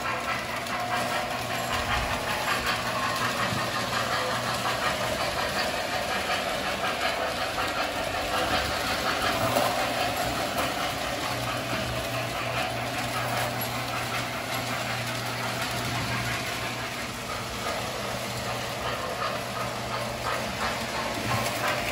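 Several O gauge model trains running on tubular track: a steady whir of the motors mixed with the rattle of wheels over the rails.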